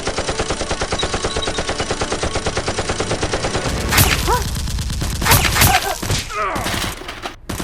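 Dubbed automatic-gunfire sound effect: a rapid, even burst of shots for about four seconds, then several louder single shots.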